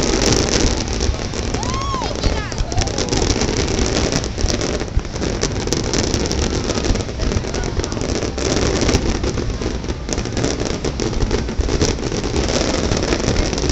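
Aerial fireworks shells bursting and crackling in rapid, nearly continuous succession.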